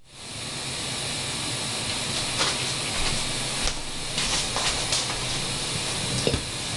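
Steady hiss of background noise, with a few soft scattered thuds and rustles in the middle and near the end as a person walks up and sits down on a sofa.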